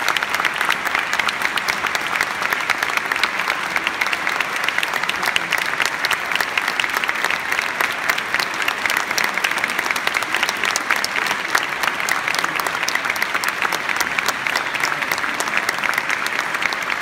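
Audience applauding: dense, steady clapping from many hands that keeps up without a break.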